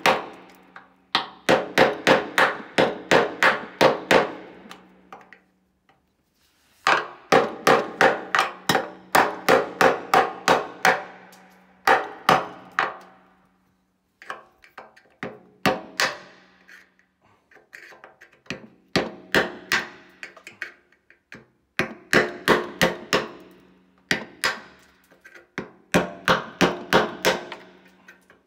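Hammer blows on a screwdriver chiselling old body filler off a Honda CBR 919RR's dented steel fuel tank: runs of sharp metallic taps, about three or four a second, each with the tank ringing, broken by short pauses.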